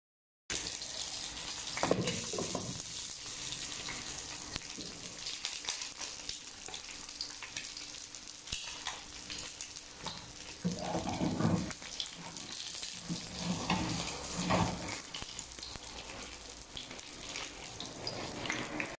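Eggs frying in oil in a pan, a steady sizzle that starts about half a second in. A few louder muffled bumps stand out over it.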